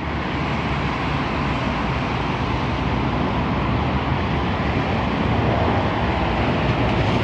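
Steady mechanical rumble with a low hum, slowly growing louder.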